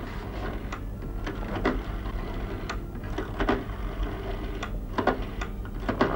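Rotary-dial telephone being dialled: each digit is wound round and released, giving a run of short mechanical clicks and whirrs about once a second over a steady low hum.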